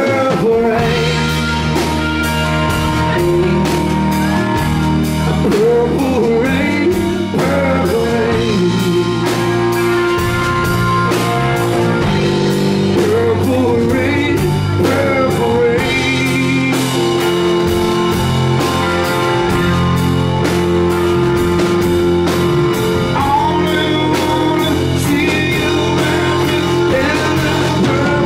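Live rock music: a man singing over electric guitar, with sustained bass notes and a steady drum beat.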